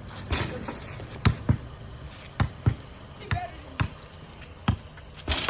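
Basketball bouncing on street pavement as kids play, about eight separate bounces at uneven intervals.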